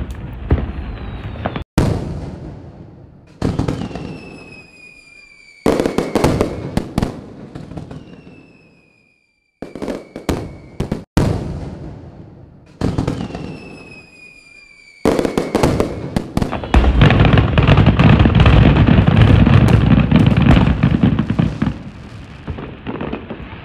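Aerial fireworks display: a series of loud shell bursts, each bang followed by a fading rumble, with a falling whistle three times between them. About 17 seconds in, a rapid barrage of bursts runs together into one continuous rumble and crackle for about five seconds, the loudest part, then fades.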